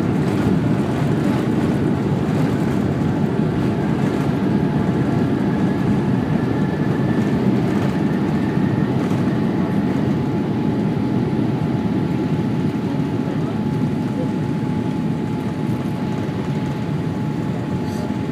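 Jet airliner's takeoff roll heard from inside the cabin: a loud, steady roar of the engines at takeoff thrust together with the rumble of the wheels on the runway, with a faint rising whine in the first half. The roar eases a little near the end as the airliner lifts off.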